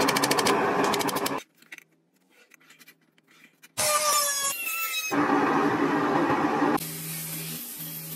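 A quick run of hammer strikes on a steel dagger blade clamped in a vise, stopping after about a second and a half. After a pause a hand-held rotary tool spins on the blade with a whine that slides in pitch, followed by a steadier grinding noise that drops lower near the end.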